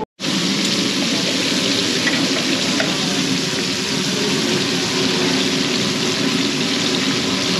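Fish sizzling as it cooks, a steady loud sizzle that starts and stops suddenly.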